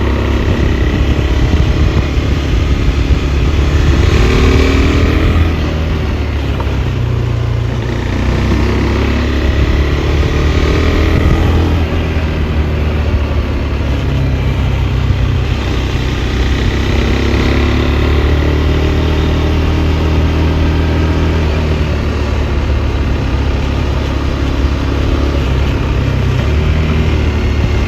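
KTM 390 Adventure's single-cylinder engine under way, its pitch rising and falling several times as it accelerates and eases off.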